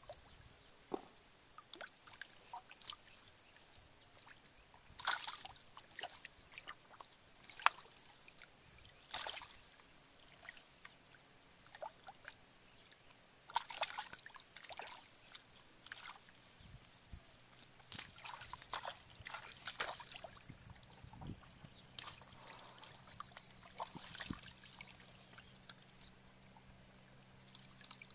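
Hands splashing and sloshing in shallow muddy water, groping through grass for fish, with irregular small splashes and trickles; the louder splashes come between about five and fourteen seconds in.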